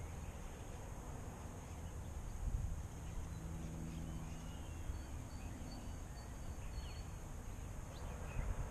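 Steady low outdoor rumble, with a few faint, short, high chirps from small birds in the middle.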